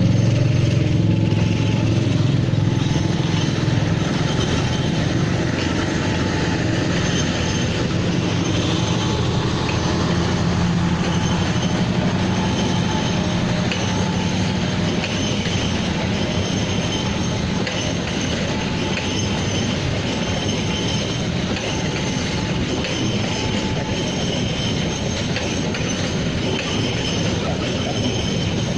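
A long passenger train rolls past steadily. Its diesel locomotive's engine hum is strongest in the first half and then fades, leaving the carriages' wheels rushing along the rails with a faint high squeal.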